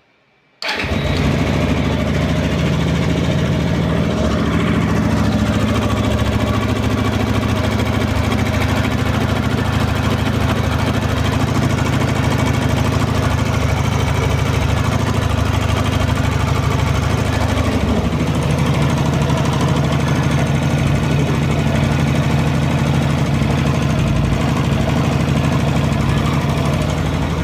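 Kasinski Comet 250 GTR motorcycle's 250 cc V-twin engine comes in abruptly about a second in and runs steadily at idle, the idle note shifting a little about 18 seconds in. It is being checked for an engine noise that the owner says is much reduced and barely noticeable once the engine is warm.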